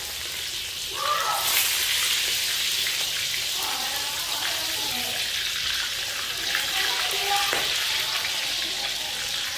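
Whole frogs frying in hot oil in a wok, a steady sizzle, as they are stirred and turned with a metal ladle.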